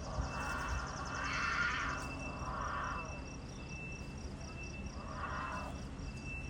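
Outdoor ambience: a rhythmic high chirping, about three pulses a second, over a faint steady high tone, with swells of rushing noise about a second in and again about five seconds in.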